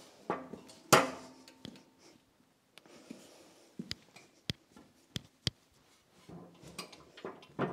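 Scattered sharp metal clinks and knocks from hands-on work at a hydraulic shop press, a few at a time, with the loudest knock about a second in and a busier run of clatter near the end.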